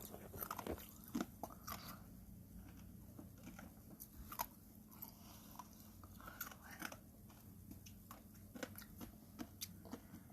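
Ice being bitten and chewed: irregular sharp crunches and cracks, a few closely bunched, with gaps between bites. A faint steady low hum runs underneath.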